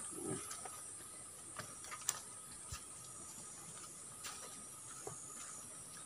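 Faint, steady chirring of insects in thick vegetation, with a few soft scuffs of footsteps on a dirt path.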